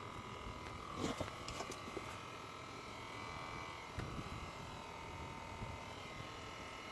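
Small electric pump running steadily at the rear of a 2019 Subaru Ascent that has been switched off for hours, a thin, even whine with a few light clicks about a second in and again around four seconds. The owner suspects it is the EVAP system's pump.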